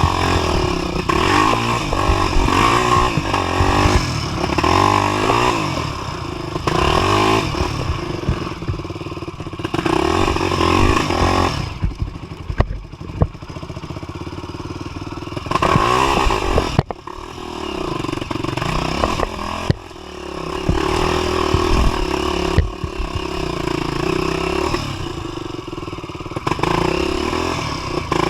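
A 250 cc single-cylinder trail motorcycle engine revving up and down over and over while riding a rough trail, with knocks and rattles from the bike over the terrain.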